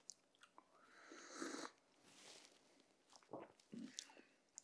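A faint slurp of espresso sipped from a small cup, lasting under a second, followed by small mouth and lip sounds.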